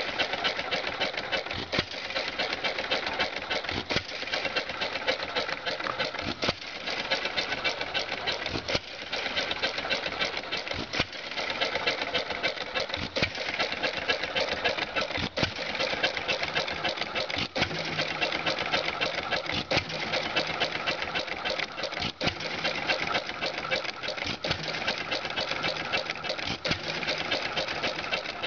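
Cushman model C8 engine running as a hit-and-miss engine: a steady rapid mechanical clatter with a louder firing stroke every few seconds.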